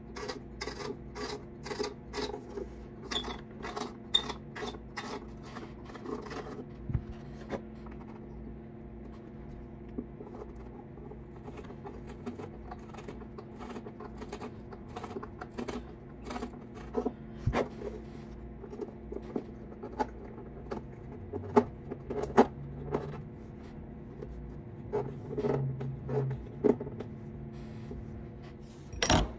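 Hand tool scraping at the wood of a fiddle's tail end, with short regular strokes about two to three a second for the first six seconds, then scattered scrapes and sharp clicks. A loud knock comes near the end.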